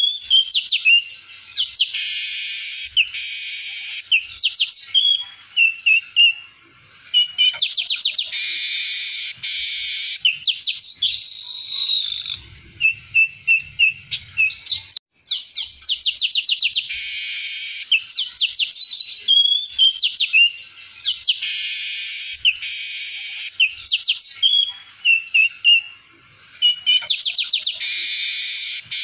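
Male weaver bird (manyar) singing: fast chattering clicks and short whistled glides, broken every few seconds by long, dry buzzing wheezes of about a second each.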